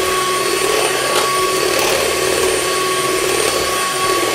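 Electric hand mixer running steadily, its beaters whipping a set ice cream base in a stainless steel bowl, with a constant motor whine. The base is being beaten to draw in air so that it grows in volume.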